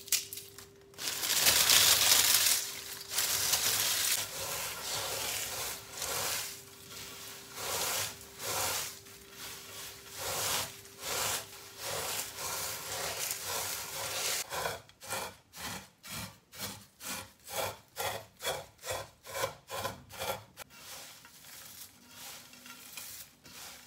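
Crisp fried dough strips being crushed and rubbed by hand in a glazed clay platter: dry crunching and crackling, loudest for the first few seconds. Later comes a quick run of short rubbing strokes, about three a second, as the strips break down into coarse crumbs.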